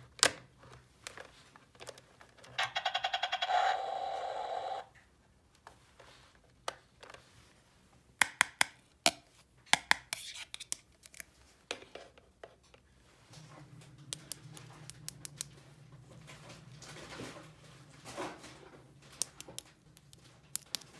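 Small plastic toy pieces clicking and tapping as they are handled. A short buzzing electronic tone plays about three seconds in, and a faint low hum comes in about two-thirds of the way through.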